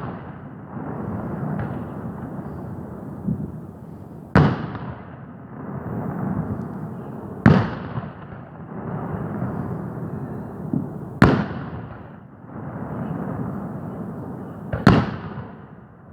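New Year's Eve fireworks bursting overhead: four loud bangs, about three to four seconds apart, with a few fainter pops and a steady low rumble between them.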